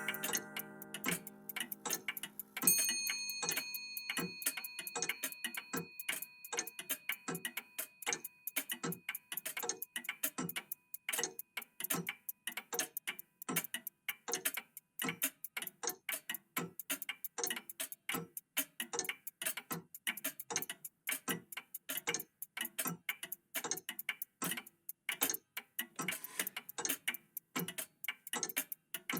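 Several old mechanical clocks ticking at once, out of step, so the ticks fall many times a second. About three seconds in, a single high bell-like chime strikes and rings away over several seconds.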